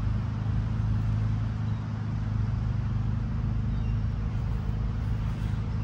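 Steady low hum of an engine running, with no sudden sounds standing out.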